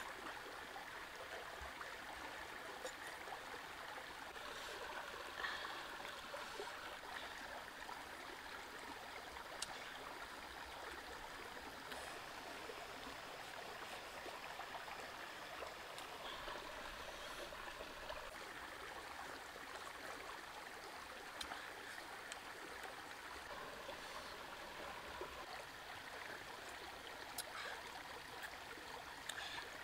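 Shallow stream running over rocks, a steady low wash of water, with a few faint clicks here and there.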